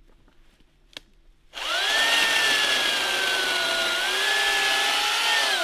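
Electric chainsaw switched on about a second and a half in, running at speed with a high whine whose pitch sags a little as it cuts into a birch log, then released near the end and winding down.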